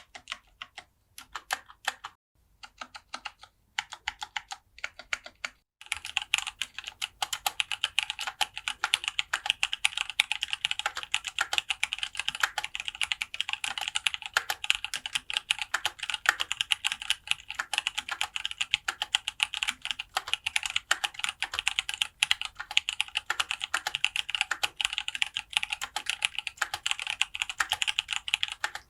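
Mechanical keyboard in a full-aluminium case, with lubed Zealios 62 g tactile switches and dye-sublimated keycaps, being typed on. Separate keystrokes and short runs come first; from about six seconds in it settles into fast, continuous typing.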